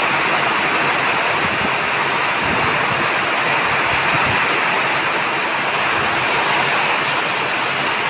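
Heavy downpour: a loud, steady rush of rain pouring onto the ground and the sheet-metal roof overhead.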